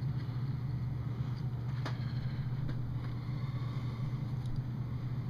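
Steady low hum, with a single light tap or click about two seconds in.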